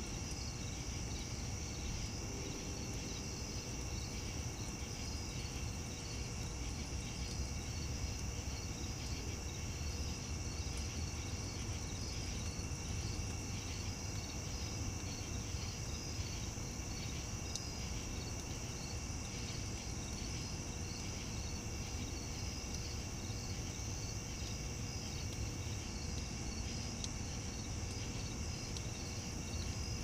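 Chorus of night-singing insects: a steady high trill with a regular chirping pulse over it, above a low steady rumble.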